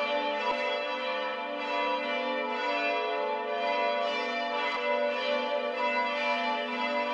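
Several church bells ringing together in a continuous peal, their long overlapping tones blending into a dense, even wash of sound.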